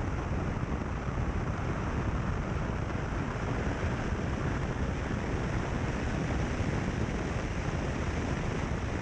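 A car driving steadily along a gravel road: a constant low rumble of tyres on gravel mixed with wind noise on the microphone.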